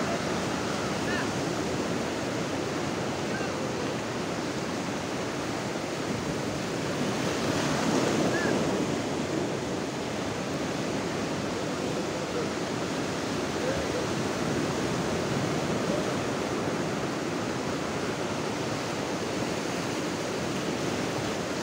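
Sea surf breaking and washing up a beach in a steady rush of noise, with one wave louder about eight seconds in.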